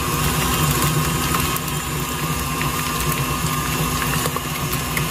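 KitchenAid Classic stand mixer running steadily at medium speed, its flat beater whipping butter in a stainless steel bowl.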